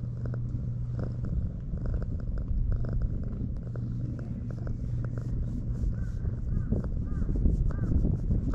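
Tortoiseshell cat purring steadily while being stroked on the head and chin, close to the microphone.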